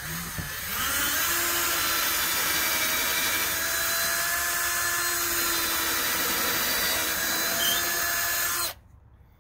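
Cordless drill boring a pilot hole into a wooden fence board. The motor whine rises over about the first second, runs steady for about eight seconds, then stops suddenly.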